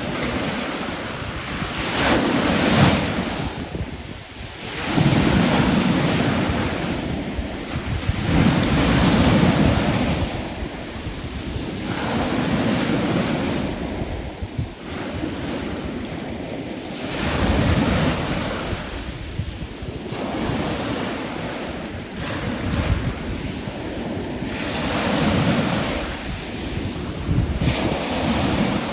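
Sea waves breaking, the wash swelling louder and falling back every few seconds, with wind rumbling on the microphone.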